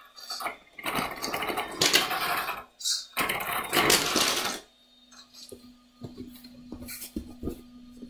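Electric RC monster truck driven in three short loud bursts, its motor and big knobby tyres rushing and scrabbling over a wooden floor scattered with Lego bricks. After that it goes quieter, leaving a faint steady hum and a few small clicks.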